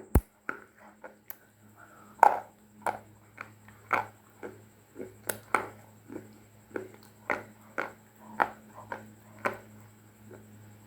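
Crisp crunches of dry clay (mitti), coming irregularly about one or two a second, with a sharp, loud crack just after the start.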